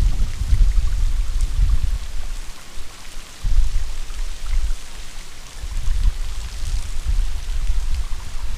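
Mountain wind gusting across the microphone: a low rumble that swells and eases, dropping back briefly twice.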